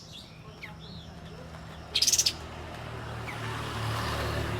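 Sooty-headed bulbul calling: a few short falling chirps and, about two seconds in, one loud brief rasping burst of rapid notes.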